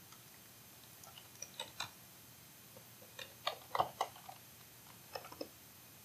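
Computer keyboard keys tapped in short runs: a few quick clicks, a louder cluster a little past the middle, and a last few near the end.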